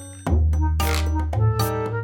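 Background music: a bouncy tune with a steady bass line, a regular beat and a reedy or brassy lead.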